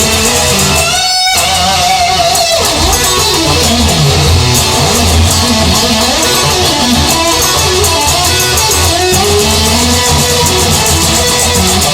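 Instrumental break of a rock song: electric guitar with bass, the guitar bending and sliding its notes over a steady high ticking beat. The music drops out briefly about a second in.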